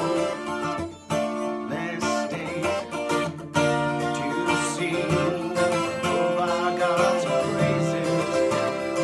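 Guitar strummed to accompany a hymn, with a man singing over it at times.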